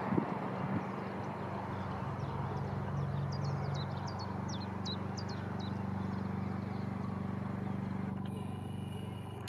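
Steady low drone of a distant Northern Class 156 diesel multiple unit's Cummins diesel engines as the train runs along the line. A small bird chirps a quick string of short, falling notes from about two and a half to five seconds in.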